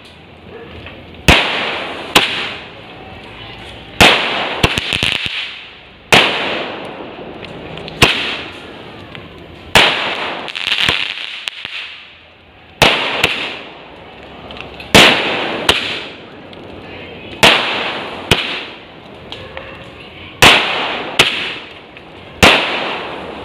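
Fireworks going off in the sky: a sharp bang roughly every two seconds, each followed by a crackling, fizzing hiss that fades away.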